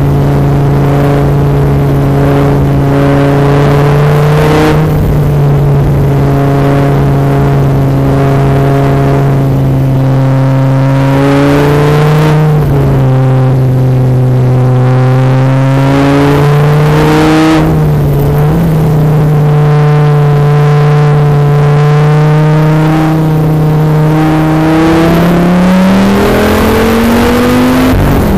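Sports car engine heard from an onboard camera while lapping a race track, running at a fairly steady pitch with small dips and rises. Near the end the pitch climbs steadily as the car accelerates.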